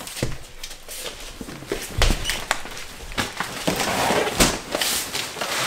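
A large cardboard box being lifted, tipped and laid down: scattered knocks and thuds, with the cardboard scraping and rustling more busily toward the end.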